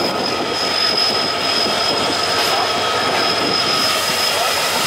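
A passenger train rolling slowly over station trackwork, heard from an open coach doorway: a steady high-pitched wheel squeal over the rumble of the wheels on the rails.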